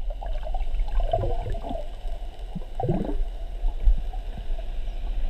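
Underwater sound: a steady low rumble with irregular bubbling, gurgling bursts, the largest a rising gurgle about three seconds in.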